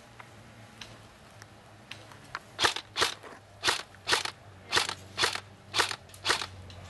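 Footsteps crunching through dry grass and brush: about eight steps at roughly two a second, starting about two and a half seconds in.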